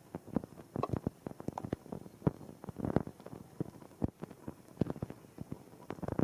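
Rain falling in separate, irregular drops that each land with a sharp tap or plop on hard surfaces, over a faint steady hiss of rain.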